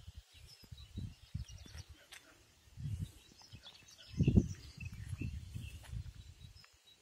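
Small birds chirping and twittering in short scattered calls, over low irregular rumbling of wind buffeting the microphone, loudest about four seconds in.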